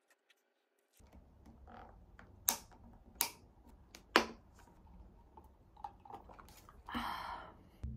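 Clear plastic lid of a takeaway coffee cup clicking as fingers work it open, a run of sharp separate clicks, three of them louder, then a brief rustle near the end.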